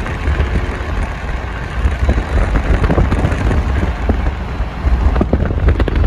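Road and wind noise of a moving car: a steady low rumble with wind buffeting the microphone.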